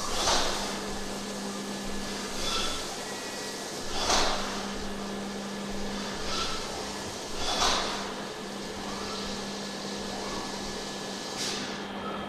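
Five-axis CNC machining centre running with coolant spraying inside its enclosure: a steady hiss that swells every couple of seconds, under a steady low hum that stops about two-thirds of the way through.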